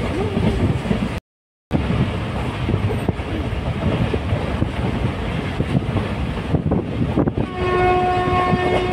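Train running with steady rumbling and clattering noise; about seven and a half seconds in a train horn sounds one steady blast lasting about a second and a half. The sound cuts out completely for half a second about a second in.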